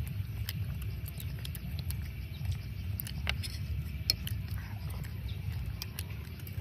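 Close-up eating sounds: chewing and mouth smacks on soft rice cakes, with scattered sharp clicks of chopsticks against a steel plate, over a low steady rumble.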